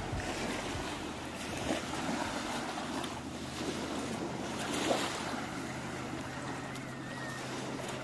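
Small waves lapping and washing up the sand at the water's edge: a steady surf hiss that swells a little as each wave comes in, with light wind on the microphone.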